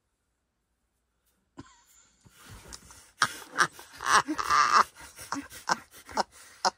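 Breathy laughter in short irregular bursts, starting about a second and a half in, mixed with the rustle and knock of a woven cushion being handled.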